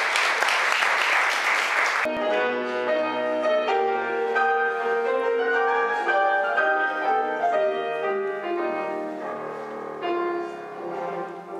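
An audience applauding, cut off abruptly about two seconds in, followed by solo piano music, a slow melody of separate notes.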